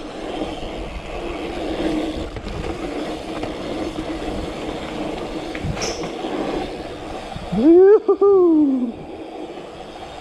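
BMX bike rolling along a city street: steady tyre and road hum. About eight seconds in, a loud call with a clear pitch rises and then falls over about a second and a half, louder than anything else.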